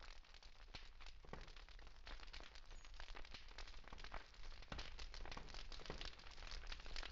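Faint crackling of a wood campfire, with quick irregular pops and snaps from the burning logs.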